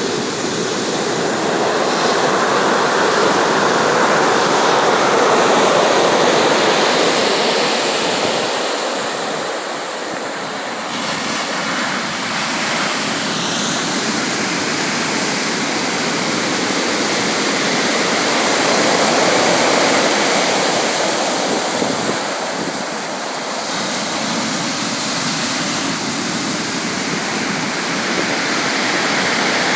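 Sea surf: a steady wash of waves that swells and eases slowly, rising twice and dipping twice.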